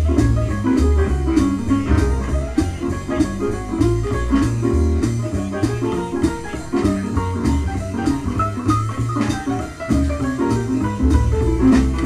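Jazz piano trio of piano, double bass and drums playing from a vinyl record on a turntable. A bass line of short, changing low notes runs under the piano, with a steady cymbal beat on top.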